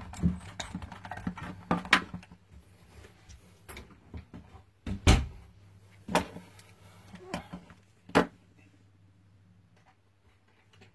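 Hands working on a pair of Bluetooth earmuffs: scattered sharp clicks and knocks with light rustling between them, about six distinct knocks, the loudest about five seconds in, trailing off near the end.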